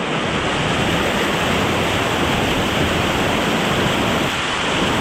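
Waterfall pouring close by: a loud, steady rush of falling water with no break.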